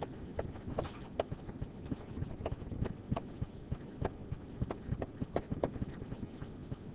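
A digital pen stylus tapping and clicking against its writing screen during handwriting. The taps are light and irregular, about two or three a second.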